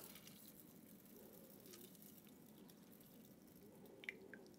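Faint trickle of a shaken cocktail pouring from a metal shaker tin through a fine-mesh strainer into a coupe glass, with a couple of faint ticks near the end.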